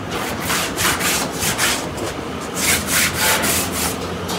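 Wood being worked by hand: a run of quick, uneven scraping strokes, about three a second, as timber or plywood is sawn or rasped in a carpentry workshop.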